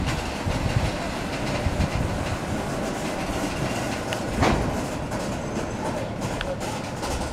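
Loaded freight gondola wagons rolling slowly past, wheels clattering over the rail joints, with one heavier knock about four and a half seconds in.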